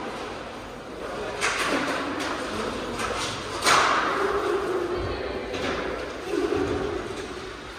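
Inline hockey play on a plastic tile rink in a large hall: sharp clacks of sticks and puck, three of them, the loudest about three and a half seconds in, with short shouts from players.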